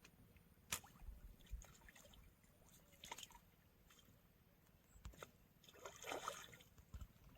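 Near silence, broken by a few faint clicks and a brief rustling noise about six seconds in.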